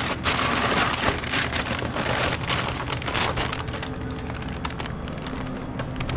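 Rain falling on hard surfaces with many small drip clicks, heaviest in the first three seconds and easing after that, over a low steady hum.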